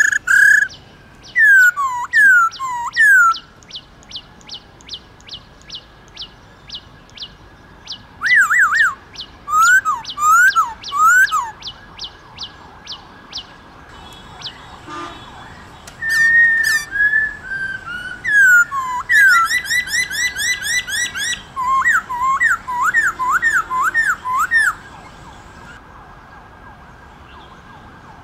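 Black-throated laughingthrush singing: loud whistled phrases of quick down-slurred notes, some held, in several bouts, with a fast run of thin high ticks, about four a second, through the first half. The song stops about 25 seconds in.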